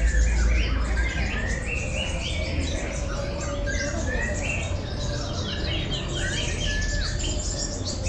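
Many caged kolibri ninja sunbirds singing at once: quick high chirps and trills overlapping without pause, over a faint steady low hum.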